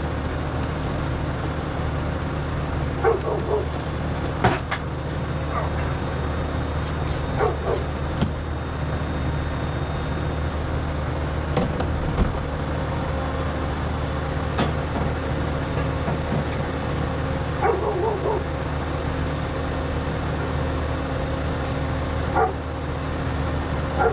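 A steady motor hum with irregular sharp metal knocks and clanks as hot steel is worked into shape by hand.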